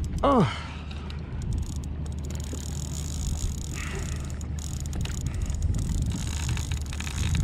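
Spinning reel's drag buzzing and clicking as a hooked fish pulls line off under a hard-bent rod, over a steady low rumble of wind and water. A short falling whine comes near the start.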